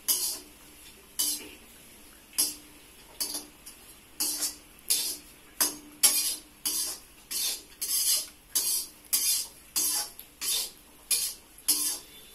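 Metal spatula scraping and stirring peanuts in a steel wok, about twenty strokes with a light metallic ring. They start slowly, then come about two a second from a few seconds in.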